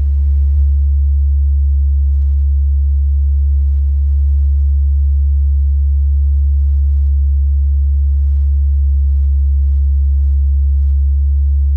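A 70 Hz sine test tone played through a Kicker Comp R 10-inch car subwoofer: a steady, loud low hum with faint overtones above it. It is the test tone used to set the subwoofer amplifier's gain.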